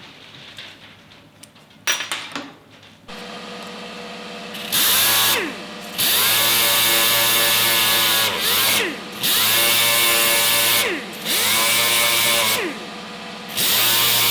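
A power drill boring into a metal part for a 3/8 tap. After a sharp knock about two seconds in, the motor starts and runs steadily. The bit then bites in six loud spells of a second or two each, and its pitch sags at the end of each spell.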